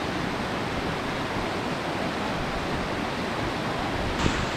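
Steady rush of a fast glacial mountain stream. A brief knock sounds near the end.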